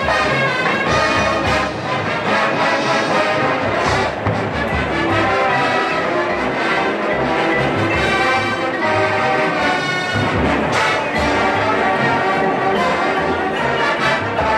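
Marching band playing a Las Vegas-themed show tune, led by the brass.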